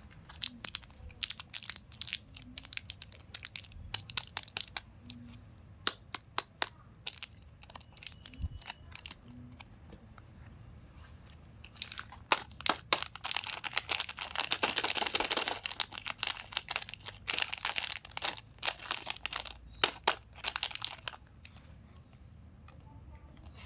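Chocolate bar wrappers crinkling and tearing as they are handled and opened: scattered sharp crackles, with a denser run of continuous crinkling in the second half.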